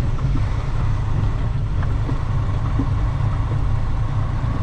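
Semi-truck's diesel engine running at low speed, heard from inside the cab as a steady low drone, with a few light knocks as the truck rolls over a rutted mud road.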